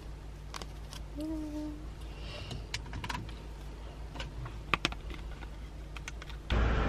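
Scattered light clicks and rustles of handling inside a parked car, over a steady low hum. Near the end it cuts abruptly to louder outdoor street noise.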